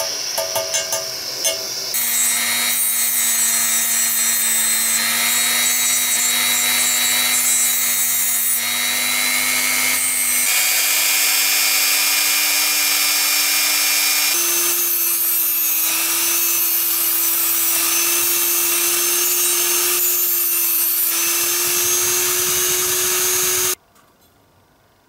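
Handheld rotary tool with a small cutting disc running, a steady high whine that steps up in pitch a couple of times and cuts off suddenly near the end. It is preceded for about two seconds by the hiss of a small gas torch with a few clicks.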